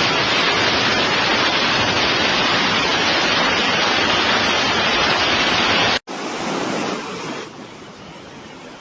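Loud, steady rush of floodwater. About six seconds in it cuts off abruptly to a quieter rushing sound, which drops lower again near the end.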